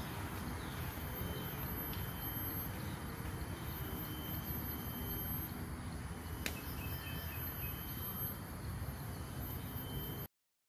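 Outdoor forest ambience: insects chirring in steady high tones over a low, even rumble. There is one sharp click about six and a half seconds in, and the sound cuts off abruptly near the end.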